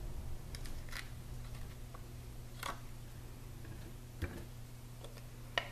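Four faint clicks and taps about a second and a half apart as adhesive enamel dots are peeled from their sheet and pressed onto a paper card, over a low steady hum.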